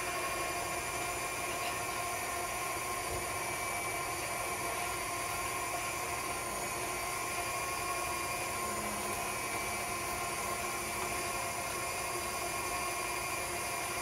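KitchenAid stand mixer running its meat grinder and sausage stuffer attachment, a steady motor whine as ground sausage meat is pushed down the hopper with the plunger. The meat is filling the stuffing tube to drive the air out before the casing goes on.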